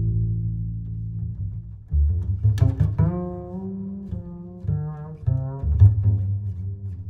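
Background music carried by deep, low bass notes that change every second or so, with sharper plucked-sounding notes entering about two and a half seconds in.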